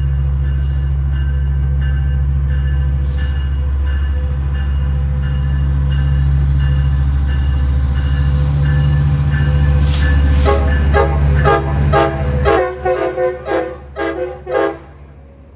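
Diesel passenger locomotive running with a steady deep rumble, then from about ten seconds in a rapid run of about eight short train horn blasts, several tones sounding at once, in a horn show.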